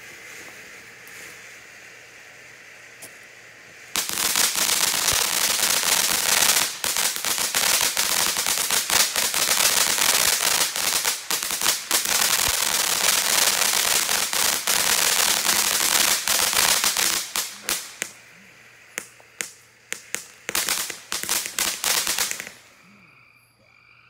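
Consumer ground firework fountain hissing steadily as it sprays sparks. About four seconds in it breaks into a dense, loud crackle of tiny pops. The crackle thins to scattered pops after about 17 seconds and dies out a little after 22 seconds.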